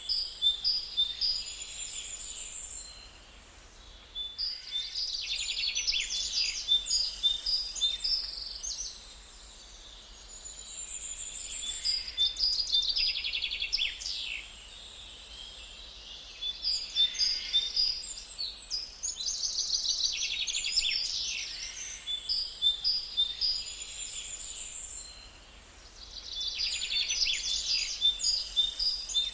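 Small caged birds chirping and singing in busy bouts of trills and tweets, each a few seconds long, separated by short lulls.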